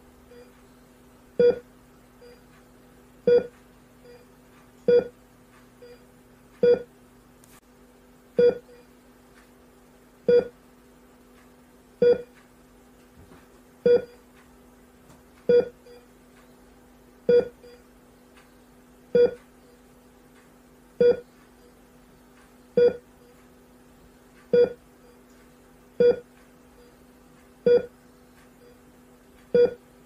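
Hospital heart monitor beeping with each heartbeat: a short, mid-pitched beep about every 1.8 seconds in an even rhythm, over a steady low hum.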